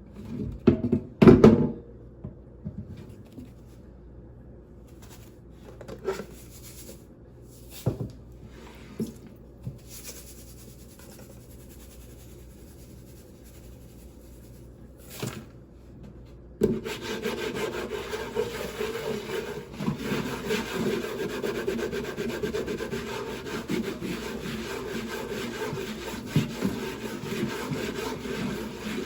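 A few knocks on wood, the loudest about a second in. From just past the middle comes continuous gritty scrubbing: coarse salt being rubbed back and forth over a wooden chopping board.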